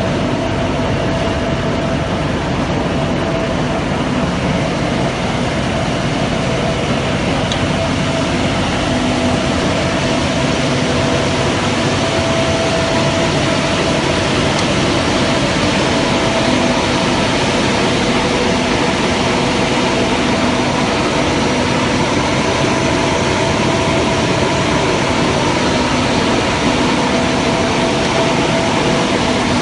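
Organic fertilizer pellet production line running: a ring die granulator and its belt conveyors make a loud, steady machine drone with a constant hum through it.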